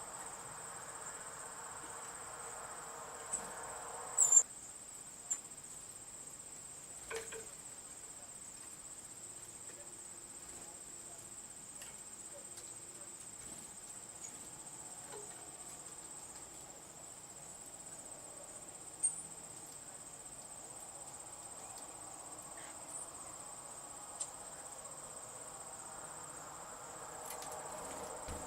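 Insects chirring in one steady high-pitched tone, with a faint rushing noise that stops about four seconds in. A few brief sharp sounds stand out, the loudest about four seconds in.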